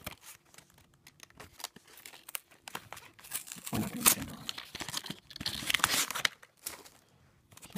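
Tape and the flaps of a cardboard trading-card deck box being pulled and torn open by hand: irregular ripping and crinkling with small clicks, loudest in two spells about four and six seconds in.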